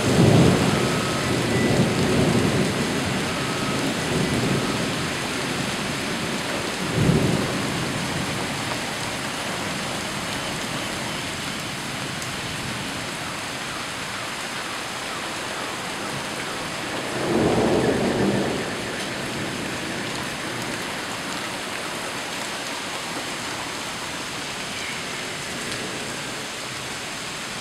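Heavy rain falling steadily with thunder rumbling, loudest at the start, then two more rolls about seven and seventeen seconds in.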